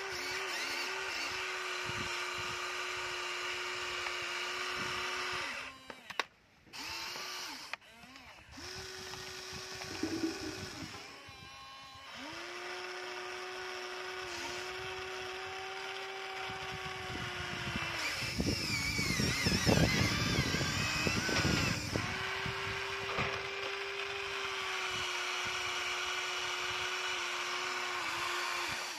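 Electric motors of a Huina remote-control toy excavator whining steadily as the arm and bucket move, cutting out briefly a few times. About two-thirds of the way through comes a louder clattering, scraping stretch of about four seconds as the bucket works through gravel and rocks.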